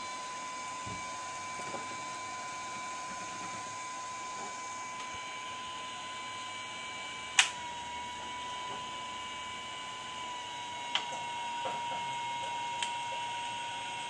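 Steady high-pitched electrical whine from a Puhui T862++ infrared BGA rework station running its preheat plate. About seven seconds in, a sharp click as the top infrared heater is switched on, and the whine shifts slightly in pitch; a few lighter clicks follow.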